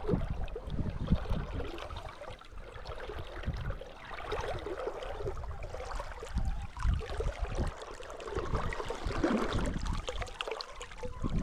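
River water running and splashing, with gusts of wind buffeting the microphone.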